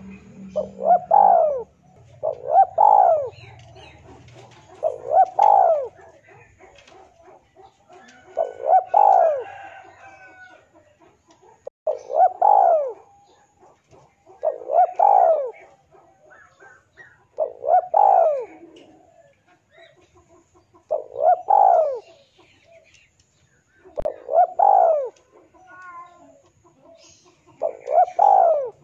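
Male spotted dove cooing its territorial call to a rival: about ten short phrases of rising-and-falling coos, repeated every two to three seconds.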